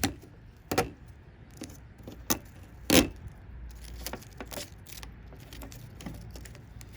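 Scattered light clicks and knocks of TV internal parts being handled, a dozen or so irregular taps with the loudest about three seconds in.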